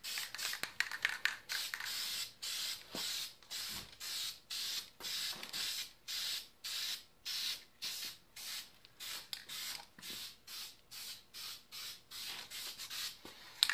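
Aerosol spray paint can being sprayed in short, quick bursts, about two a second, as a first coat of paint goes onto a plastic phone case.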